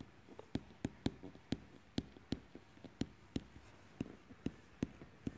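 Stylus tapping on a tablet screen while handwriting: a quiet run of sharp clicks, about three a second.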